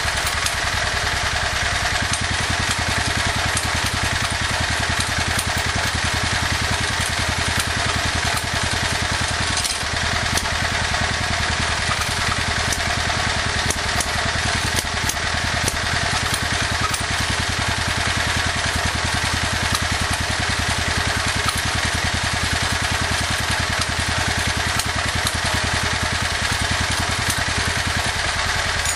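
Small portable generator's single-cylinder engine running steadily on HHO (electrolyzer hydrogen-oxygen gas) with the choke wide open.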